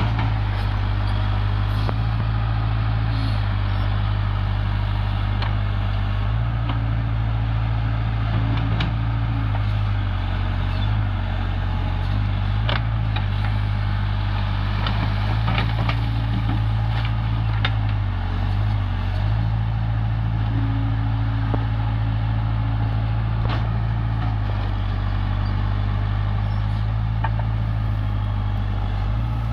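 Heavy machinery diesel engine running steadily, its note dipping and shifting several times, with light clicks and knocks now and then.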